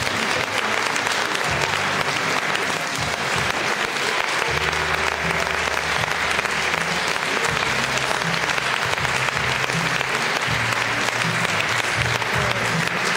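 Steady applause from a crowd of people clapping, over background music with a deep bass line.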